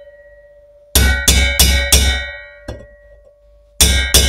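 Hammer blows on a steel drift, driving a rocker spindle home into an MkII 850 Norton Commando cylinder head: four quick ringing strikes about a second in, a faint tap, then two more strikes near the end.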